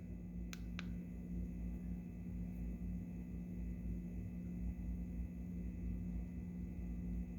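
Two short clicks a little after half a second in, then a steady low electrical hum with faint room noise.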